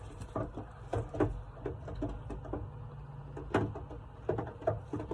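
Irregular light clicks and knocks of handling, with one sharper knock about three and a half seconds in, over a low steady hum.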